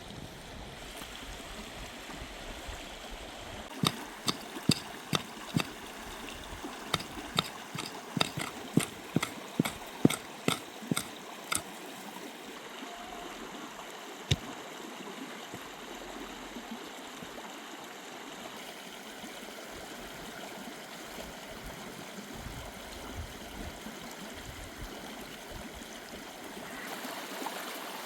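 Steady rush of running water. About four seconds in comes a run of sharp knocks or clicks, around fifteen over some eight seconds, with one more a few seconds later.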